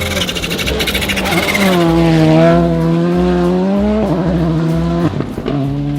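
Racing car engine revving, its pitch holding and then stepping up and down, over background music with a steady low beat.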